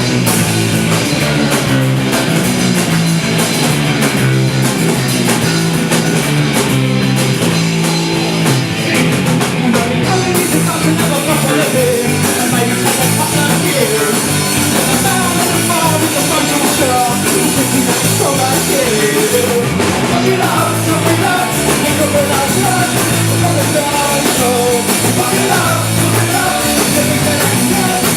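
Rock band playing live, with a drum kit and singing.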